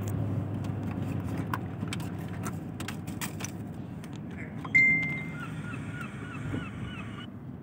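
Road and engine noise inside a moving car, with scattered light clicks. About five seconds in comes a short high beep, the loudest sound, followed by a run of quick repeated chirps at about three or four a second.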